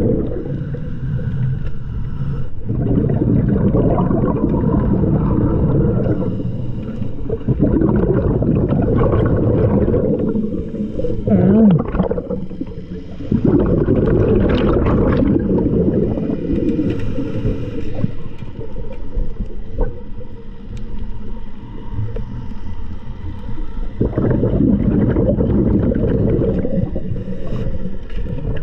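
Underwater sound of a scuba diver's exhaled bubbles gurgling and rumbling in bursts every few seconds as the diver breathes.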